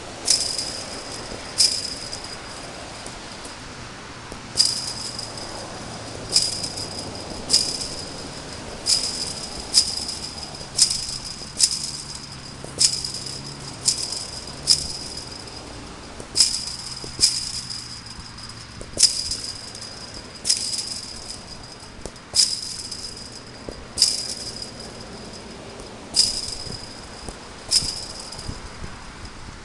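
A soccer ball kicked repeatedly against a chain-link fence: a sharp bang every second or two, each followed by a brief metallic rattle and ring of the wire mesh that dies away.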